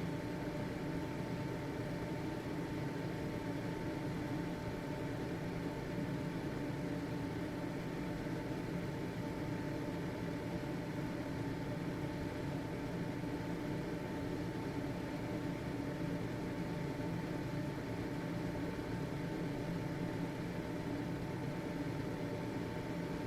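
Household ventilation fan running steadily: an even rush of air over a low motor hum, with a thin constant whine above it.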